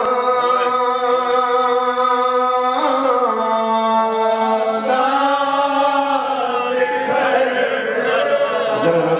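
A male voice reciting a noha, a Shia mourning elegy for Karbala, in long drawn-out held notes that shift pitch about every two seconds.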